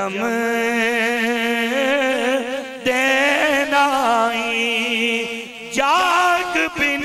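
A man singing a Punjabi devotional verse, drawing one word out into a long held note with wide vibrato. There is a brief break about three seconds in, then a new phrase, and near the end the voice slides up into the next line.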